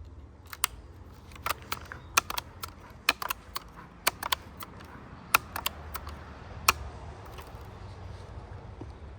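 Irregular run of sharp mechanical clicks and clacks, about twenty over six seconds with none much louder than the rest: handling of a Daisy Powerline 880 multi-pump air rifle.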